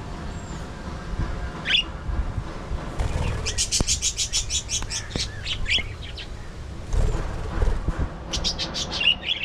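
Budgerigars chirping and chattering, with two quick runs of rapid high chirps, one about a third of the way in and another near the end, over a low background rumble.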